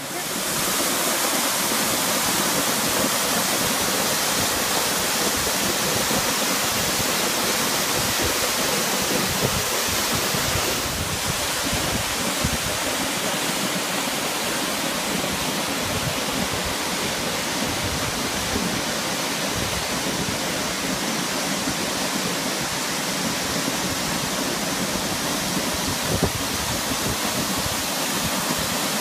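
Waterfall pouring: a steady, loud rush of falling water, swelling sharply in the first second.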